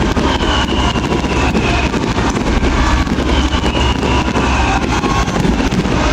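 Fireworks display going off continuously: dense crackling and bangs over a heavy rumble, with two falling whistles.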